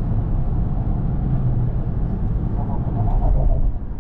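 Steady low rumble of road and engine noise inside a moving Toyota car's cabin.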